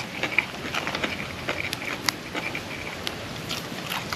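Eating sounds close to the microphone: irregular wet clicks and smacks of chewing, several a second.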